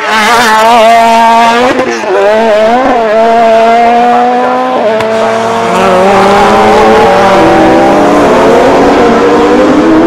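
Racing saloon car engines at full throttle. One car's engine climbs in pitch and drops suddenly at upshifts about two, three and five seconds in. Then several more cars approach, their engines overlapping and rising together.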